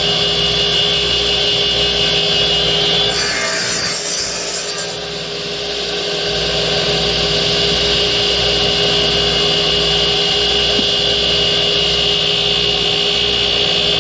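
Power band saw running steadily and cutting through wood, with a rush of hiss about three seconds in and a brief dip in loudness around five seconds before it builds back up.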